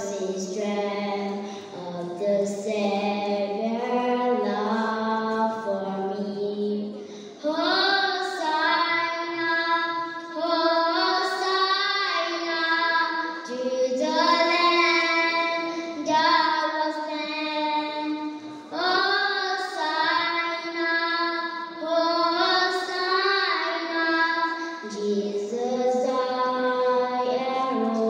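A young girl singing a solo into a microphone, one voice holding long notes. About seven seconds in the melody climbs to a higher phrase, and it drops back to the lower notes near the end.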